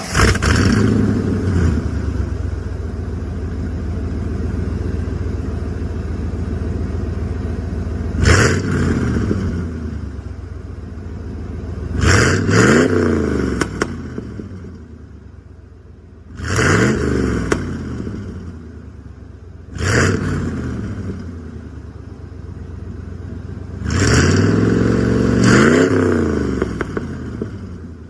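1991 Ford F-150 pickup engine running just after starting, idling and blipped several times, each rev rising and falling back to idle, twice in quick succession near the middle and again near the end.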